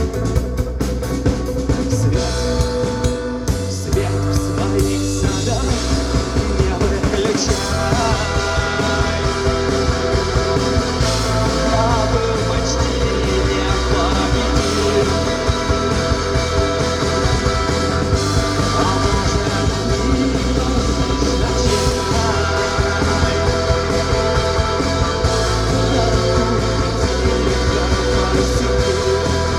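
Live rock band playing a song, with a drum kit driving a steady beat under sustained instrument tones.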